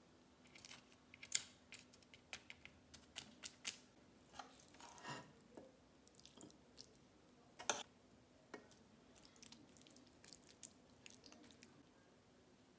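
Faint, scattered clinks and soft squelches of a metal serving spoon scraping and scooping baked rice and beans out of an enamel dish onto a ceramic plate. A few sharper clinks stand out, the loudest about a second and a half in and just under eight seconds in.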